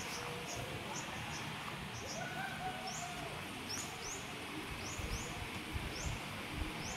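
A small bird chirping: short high notes repeated irregularly, about twice a second, over a steady outdoor hiss, with some low rumbling on the microphone in the second half.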